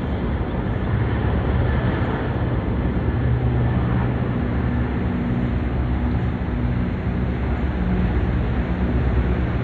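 Helicopter in flight, a steady drone of rotor and engine.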